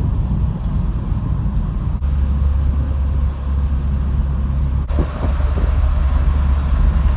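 Peugeot 306 XSi on the move: a steady low rumble of engine and road noise, which shifts at each cut, about two and five seconds in.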